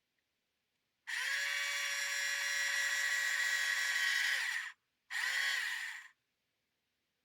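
Tamiya electric handy drill's small electric motor running. It spins up about a second in, runs steadily for about three and a half seconds, then winds down with falling pitch, and then runs again briefly for about a second.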